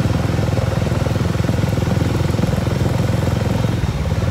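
Motorcycle and scooter engines running steadily at low speed as a group rides in convoy, with a fast, even engine pulse.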